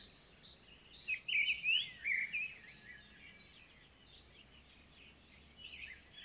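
Birds chirping and twittering, several short high calls overlapping, with a louder stretch of quick twittering between about one and two and a half seconds in.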